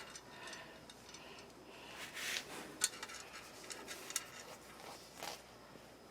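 A few faint, scattered clicks and taps of light handling over a low background hiss.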